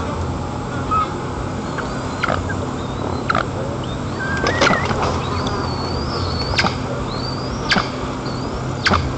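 Short, sharp, high bird calls, each one sweeping downward, come about once a second. Thin warbling whistles sound between them, over a steady background rush.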